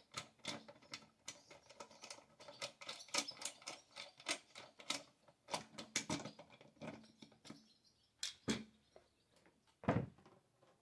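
Quick, irregular metallic clicks and ticks from hands working the bar-mount parts of a Stihl MS 462 chainsaw, with a heavier knock near the end.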